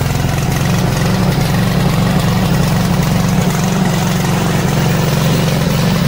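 Small gasoline engine of a remote-control crawler mower running steadily after an electric start.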